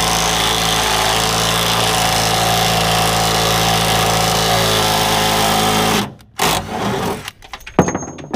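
Power tool motor running steadily at one speed for about six seconds, then cutting off, followed by a few short knocks and clicks.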